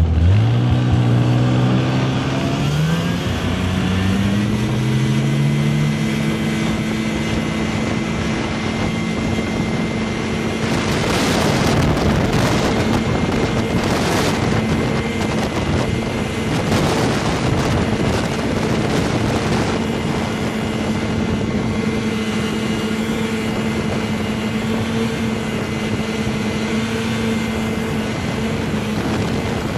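Snowmobile engine revving up as it pulls away, its pitch rising smoothly over the first few seconds, then running at a steady high pitch as it climbs the slope. A rougher rushing noise rises over it in the middle stretch.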